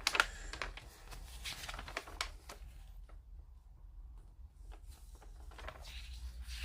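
Paper rustling and light handling noises as a kit instruction sheet is picked up and looked through, busiest over the first three seconds, then quieter.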